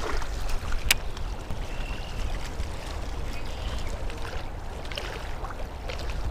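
Wind buffeting the microphone with choppy water lapping at the bank, and a single sharp click about a second in.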